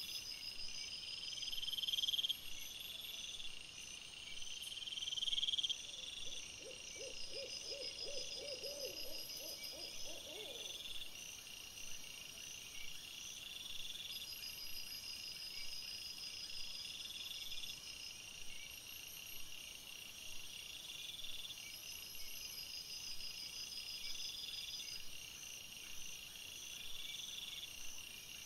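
Night insects chirping in a steady, evenly repeating pattern. From about six seconds in, an animal gives a rapid trill of low notes that lasts about four seconds.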